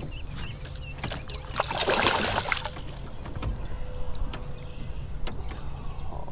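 A hooked bass splashing at the surface beside a small boat for about a second, with scattered light knocks and clicks around it.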